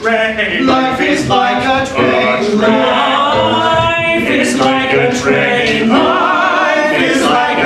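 A group of men singing together in harmony, live on stage, with long held notes in the second half.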